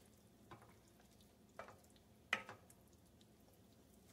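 A stirring utensil scraping against a pot of thickening roux-and-stock sauce, four faint, brief scrapes, the loudest a little past the middle.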